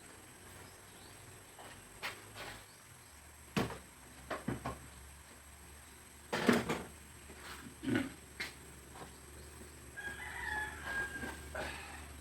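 A rooster crowing once, about ten seconds in, over a steady low hum. Several sharp knocks come before it, the loudest about six and a half seconds in.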